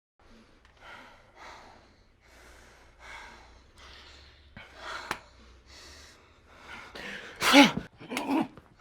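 A person breathing hard in short, repeated breaths, then two loud strained gasps or grunts falling in pitch near the end, like effort cries in a struggle.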